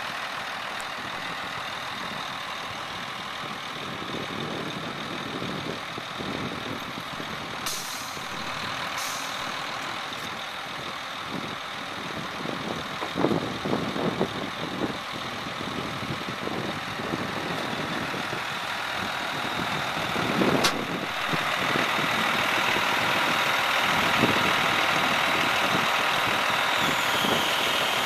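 1997 International dump truck's diesel engine running steadily at idle, with a couple of short hisses, some brief clunks and one sharp click; it grows louder in the last few seconds.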